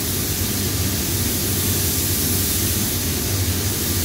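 Compressed-air paint spray gun hissing steadily as paint is sprayed onto a car body, with a steady low hum underneath.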